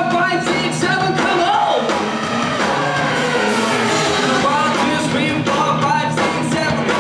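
Live rock band playing a song, with a lead singer's vocals over guitars and drums.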